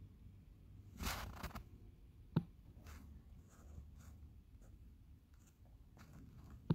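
Quiet handling noise: a brief rustle about a second in, then two sharp clicks, the second near the end, over a low steady hum.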